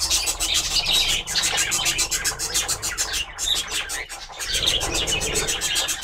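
Budgerigars chattering in a clay-pot nest, mixed with scraping and rustling as a hand reaches into the pot.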